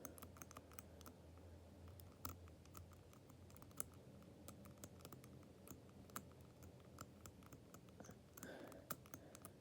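Faint, irregular clicking of a combination lock's number wheels being turned by hand, the dials ticking over from number to number while the combination is decoded by feel.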